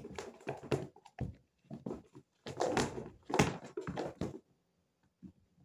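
Two house cats scuffling and pouncing at play on the floor: an irregular run of scrabbling, rustling and thumping noises, loudest in the middle, that stops about four and a half seconds in.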